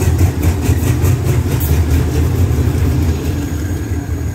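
Diesel locomotive's engine running loud and low as it rolls slowly past. A rapid ticking of about four to five a second stops about two seconds in, and the rumble eases a little as the carriages follow.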